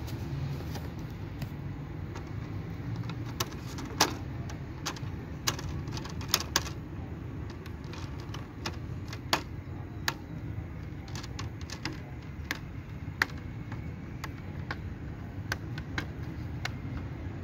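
Irregular sharp plastic clicks and taps as a laptop's screen lid and its bezel are handled and pressed, over a steady low rumble.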